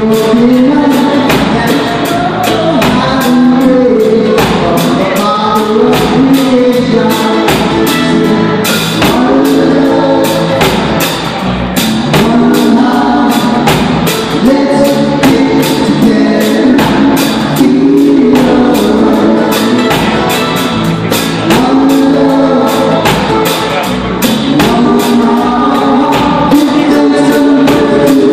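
Live band playing a reggae song with singing over strummed acoustic guitars, a mandolin and electric bass, steady and loud. Recorded on a cellphone, so the sound is harsh and crowded.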